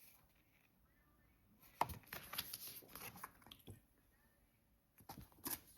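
Faint clicks and rustles of Blu-ray slim cases and cards being handled, in a cluster about two seconds in and again briefly near the end.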